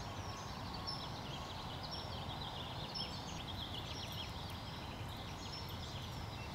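Outdoor ambience: many small birds chirping over a steady low background noise.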